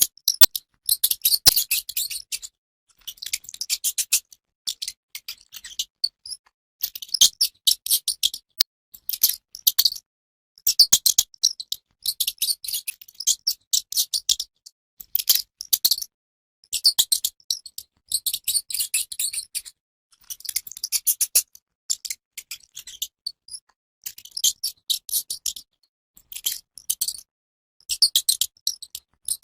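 Mouse noises: rapid, high-pitched clicking chatter in bursts of one to two seconds, with short pauses between them, repeating throughout.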